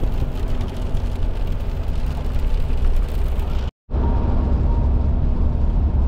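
Car driving on the highway, heard from inside: a steady low engine and road drone. About four seconds in the sound drops out for a moment, then the same drone carries on.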